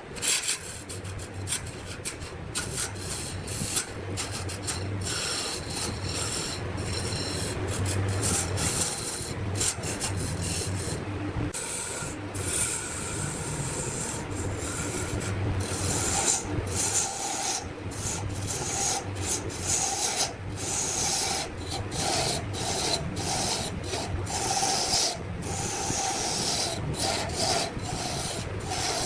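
Turning tool cutting into wood on a running lathe: continuous scraping, broken by many short gaps where the cut stops, over a low hum in the first half.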